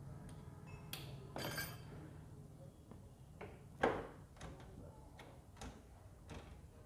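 Metal engine parts clicking and clinking as hands handle the gears and kickstart shaft inside an open motorcycle crankcase. There is a ringing metallic clink about a second and a half in, a sharp knock near four seconds, and lighter ticks in between.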